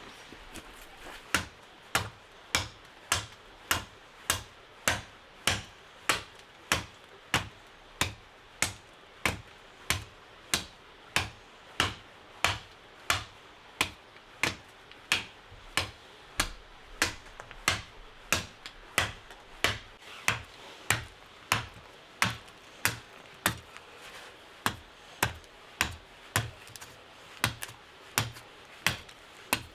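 A tool striking wood again and again at an even pace, about three sharp strikes every two seconds, starting about a second in.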